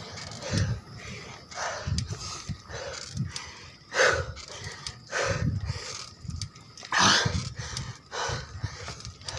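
A cyclist's heavy, labored breathing, with loud gasping breaths about once a second, from the effort of pedaling a bicycle up a steep climb.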